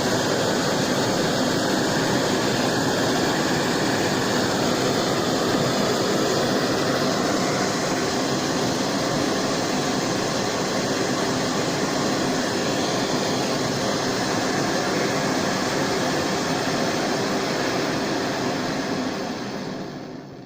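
BRS-3000T titanium canister gas stove burning: the steady, noisy rushing hiss of the burner flame, fading away near the end.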